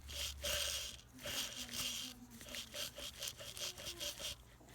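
A bad bearing in heating equipment grinding and squeaking as it turns: a rhythmic scraping that quickens to several strokes a second, with a thin squeal underneath.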